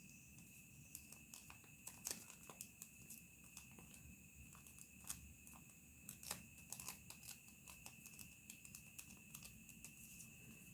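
Origami paper being folded and creased by hand: irregular soft crinkles and crackles, a few sharper ones, over a steady high trill.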